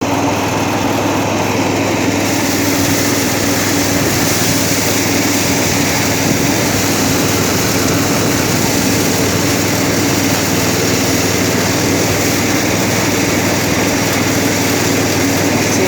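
Motorized rice thresher running steadily: its small engine and threshing drum make a constant mechanical hum over a dense, even noise.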